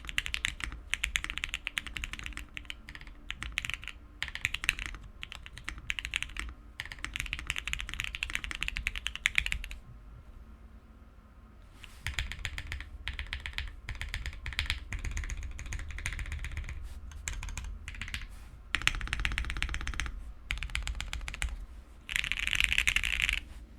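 Typing on a mechanical keyboard, a Matrix 1.2 replica with Gateron KS-3x47 Clear linear switches on a polypropylene plate: keys clacking in fast runs, with a pause of about two seconds partway through.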